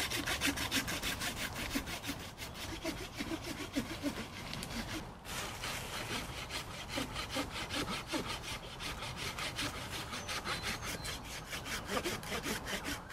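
Hand pruning saw with a wooden handle cutting a ring through the bark of a living tree trunk to girdle it, in quick, even back-and-forth strokes that pause briefly about five seconds in.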